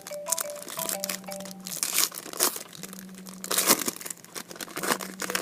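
Trading cards rustling and crinkling in irregular bursts as they are handled and flipped through, over background music with a repeating melody.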